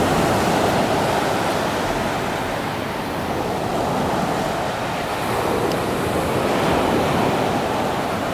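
Strong sea surf breaking and washing up a coarse dark-pebble beach, a steady rush that eases and builds again as the waves come in.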